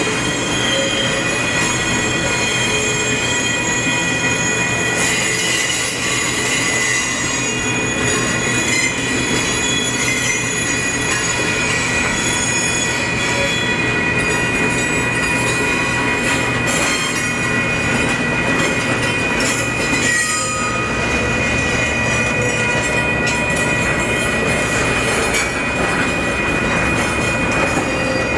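Railroad passenger cars rolling slowly past, their steel wheels squealing on the rail with steady high-pitched tones over a constant rolling noise and some clacking over rail joints. A deeper rumble joins about two-thirds of the way through.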